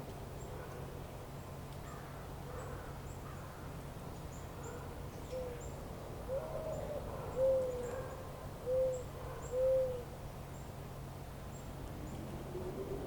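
A bird's low hooting calls: about five short hoots between five and ten seconds in, the last three louder and evenly spaced. Faint high chirps and a steady low hum run underneath.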